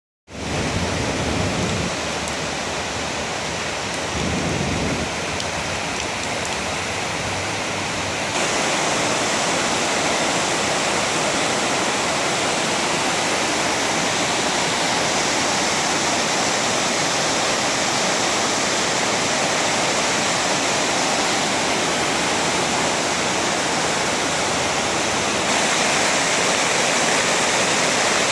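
Heavy rain pouring down steadily, growing louder about eight seconds in, with two brief low rumbles in the first five seconds.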